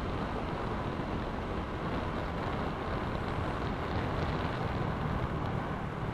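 Honda Vario 125 scooter's single-cylinder engine running at a steady cruise while riding, mixed with wind and road noise.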